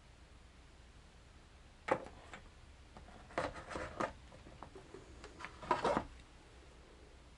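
Small glass jars of PowerBait knocking and clinking against each other as a hand rummages through a cardboard box: one sharp knock about two seconds in, then two short bursts of rattling, around three and a half and six seconds in.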